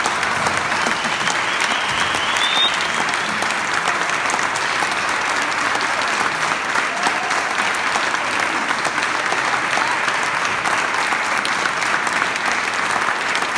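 Audience applauding: steady, dense hand clapping that keeps an even level throughout.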